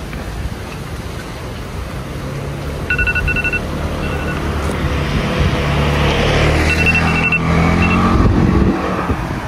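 A motor vehicle's engine pulling away, its pitch and loudness rising steadily over several seconds. Short electronic beeps sound in a few quick clusters over it.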